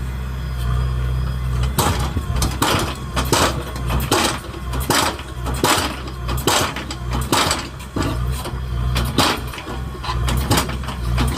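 JCB 3DX backhoe loader's diesel engine running steadily, then from about two seconds in a string of sharp metallic clanks, about three every two seconds, while the engine drone drops back, returning near the end.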